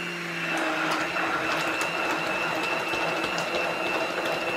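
Handheld immersion (stick) blender running steadily in a plastic bowl of liquid, an even motor whine with a high steady tone.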